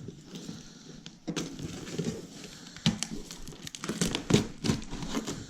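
Packaging being handled while a box is unpacked: irregular crinkling and rustling with scattered knocks and clicks.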